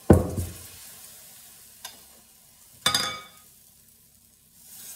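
Buckwheat crêpe batter ladled onto a hot electric crêpe maker and sizzling, with a loud knock at the start, a small click, and a ringing metallic clink about three seconds in from the ladle and pan. The sizzling hiss swells again near the end as the batter is spread thin.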